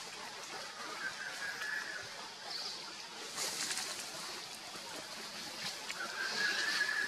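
Outdoor ambience with two drawn-out, high animal calls, one about a second in and another from about six seconds in, over light scattered clicks and rustling.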